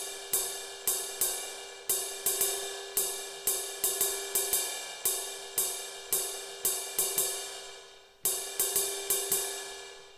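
Alesis SR-16 drum machine's 'soft ride' cymbal sample, triggered over and over in an uneven rhythm, each hit ringing out with a steady pitched shimmer. The ring dies away once during a short pause before a last cluster of hits.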